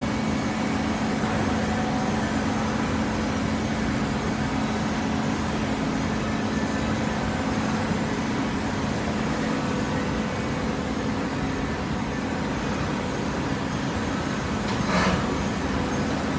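Horizontal cardboard baler and its infeed conveyor running: a steady machine hum with a low tone under it, and a short louder noise near the end.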